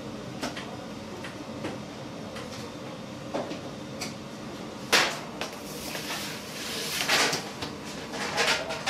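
Soft taps as boiled bagel dough rings are set down on metal baking trays, then a sharp clack about five seconds in and a longer metallic scrape and clatter near the end as a deck oven is opened for loading, over a steady kitchen hum.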